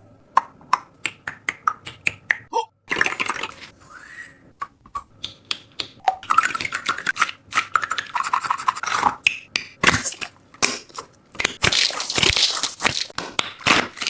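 Squishy toys being squeezed and pressed by hand, giving a run of crackling clicks and crinkly rustles with a few short squeaks. The clicks come singly at first, and the crackling thickens into dense crunchy stretches from about halfway on.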